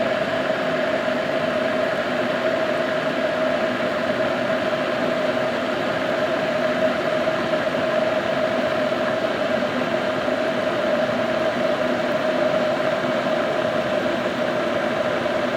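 A 220-volt electric kettle boiling water: a steady, even hiss with a constant tone running through it.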